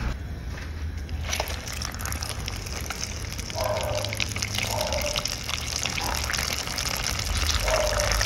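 Chicken wings deep-frying in a pot of hot oil on their second fry: a steady sizzle and crackle of bubbling oil, starting about a second in.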